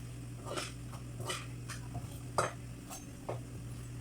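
About six light clinks and scrapes of a utensil against a bowl as bread is worked in beaten egg, over a steady low hum.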